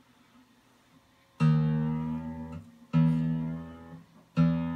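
Martin DCPA5 acoustic guitar strings plucked three times, about a second and a half apart, each note ringing out and fading as the guitar is tuned up.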